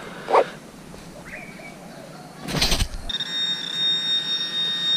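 A brief scrape or knock, then a metal detector's steady high electronic tone for about two seconds, signalling a metal target in the freshly dug hole.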